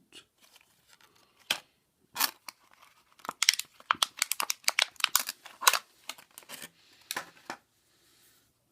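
Plastic packaging being handled and opened around a small keychain multi-tool: a run of sharp clicks and crinkles, busiest in the middle, that dies away near the end.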